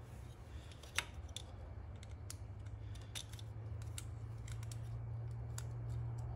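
Small clicks and ticks of a flat-head screwdriver and a plastic power switch being handled as the switch's wire-terminal screws are worked, one sharp click about a second in the loudest. A steady low hum runs underneath.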